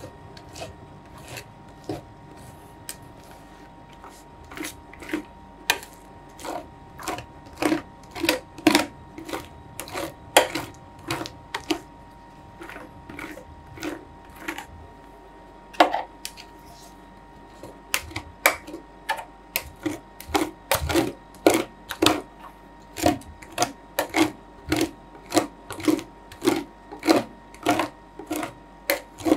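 Metal spatulas scraping and tapping on the frozen steel plate of an Ultratec ICR 2450 roll ice cream machine, spreading ice cream into a thin sheet. The strokes are sparse at first, then come about twice a second through the second half, over a faint steady hum.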